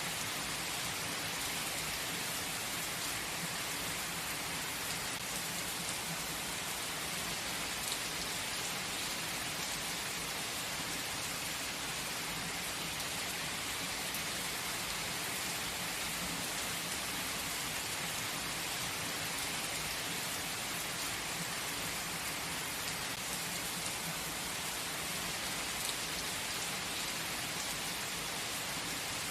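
Steady, gentle rain falling on surfaces, an even hiss with scattered faint drop ticks.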